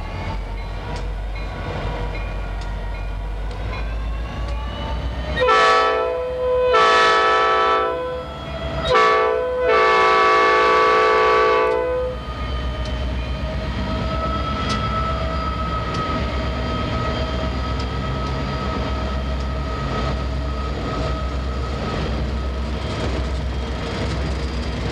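Diesel locomotive horn sounding four blasts, the third short and the last held longest: the grade-crossing warning as the train reaches the crossing. Then the locomotives roll through the crossing with a steady diesel engine drone over the low rumble of wheels on rail.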